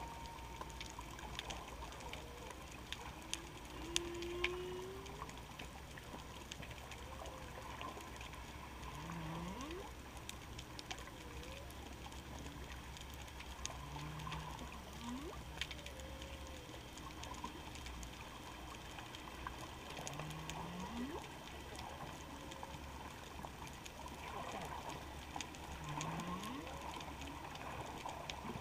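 Humpback whale song heard underwater: a phrase of low moans that sweep sharply up in pitch repeats about every six seconds, among higher moans and squeaks. Scattered sharp clicks run through it.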